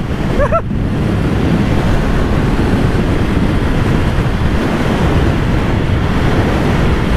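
Steady, heavy wind rush on the rider's camera microphone while a motorcycle rides at road speed, with no clear engine note standing out of it.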